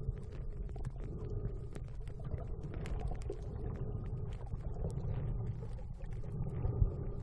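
Muffled underwater noise picked up by a phone filming beneath the sea surface: a steady low rumble of water and movement, with many scattered faint clicks and ticks.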